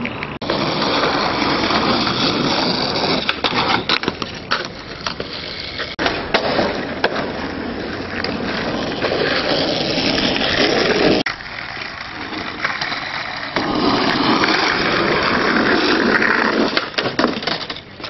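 Skateboard wheels rolling on pavement with repeated sharp clacks of the board, the sound cutting out abruptly twice near the middle.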